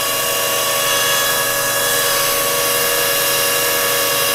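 Hydraulic power-steering test bench running steadily, a whine of several steady tones, as it pressurises a rebuilt Adwest steering box with ATF to check its new low-pressure seal for leaks.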